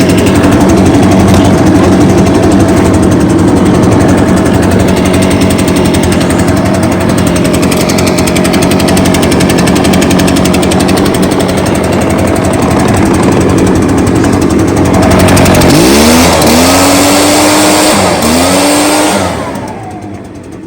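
Echo PB580T backpack blower's two-stroke engine running loud and steady at full throttle. About 16 s in, it is blipped up in pitch three times. Just before the end it drops sharply as the throttle is let off.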